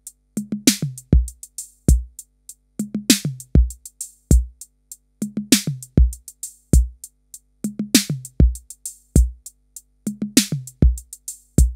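A drum-machine beat of kick drum, tom-like hits and hi-hats, repeating about every two and a half seconds, played through a DIY analog diode-VCA compressor. Its attack control, now a 100k potentiometer, is being turned toward longer attack times.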